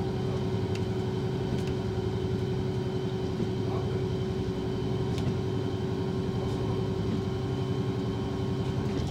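Diesel train running at speed, heard from the driver's cab: a steady low engine drone with a held hum and wheel-on-rail rumble, with a few faint sharp ticks from the track.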